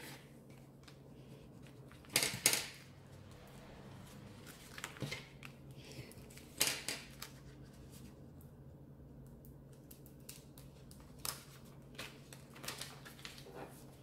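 Vinyl sheets and transfer tape being handled on a wooden table: a few short crinkles and rustles, the loudest about two seconds in, over a faint steady hum.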